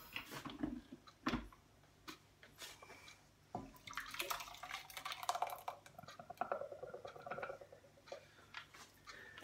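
A few clicks and a knock as a plastic food processor bowl is handled, then thick blended tomato soup pours from the bowl into a pot of soup in a gurgling, splashing pour lasting about four seconds, with a few knocks near the end as the bowl is emptied.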